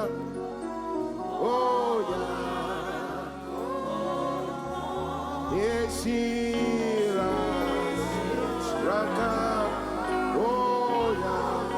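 Slow gospel worship music: a voice sings long, sliding notes over sustained chords and a bass line that shifts every few seconds.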